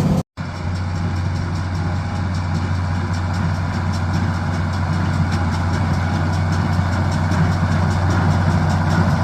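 John Deere 4020 tractor engine running steadily while pulling a small square baler through hay. The sound cuts out for an instant just after the start, then the steady engine hum carries on.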